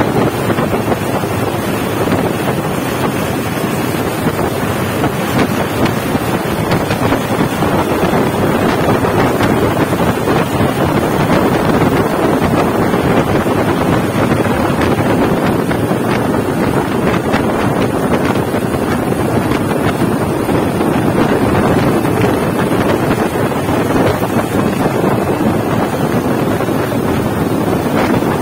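Steady, loud wind rush on the microphone of a moving vehicle, over the running engines of motorbikes and three-wheelers travelling together.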